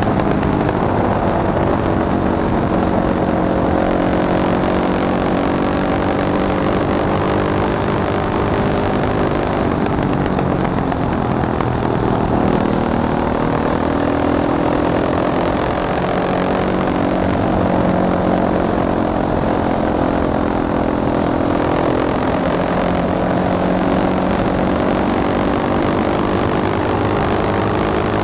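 Fantic Caballero 500 Flat Track motorcycle's single-cylinder engine running, its pitch rising and falling several times as the throttle opens and closes.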